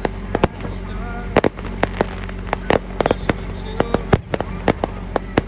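Aerial firework shells bursting overhead in rapid succession, a string of sharp bangs a few tenths of a second apart.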